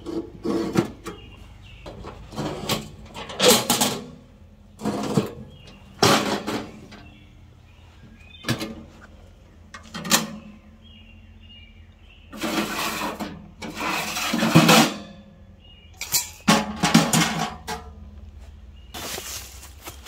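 Winnerwell Nomad stainless steel wood stove being set up by hand: an irregular run of metal clanks, scrapes and rattles as its door and nested stove-pipe sections are handled and set down, with a couple of longer scraping stretches past the middle.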